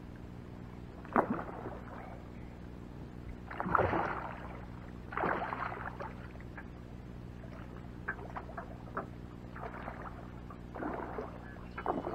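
Water splashing and sloshing at a skiff's hull in several short bursts, over a steady low hum.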